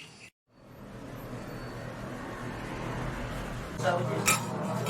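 Ambient background sound track: after a brief dropout, a steady haze of street and traffic noise fades in, with indistinct voices joining near the end.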